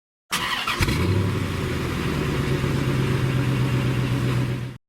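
A vehicle engine starting, with a short burst of clicks and noise as it catches, then running steadily until it cuts off abruptly near the end.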